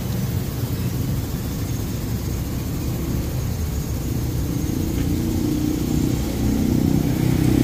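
A motor vehicle engine running at low revs, a steady low rumble, with a humming tone joining about four seconds in.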